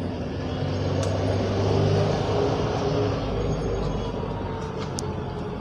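A motor vehicle's engine running close by, its hum swelling about two seconds in and then easing off, over the noise of road traffic.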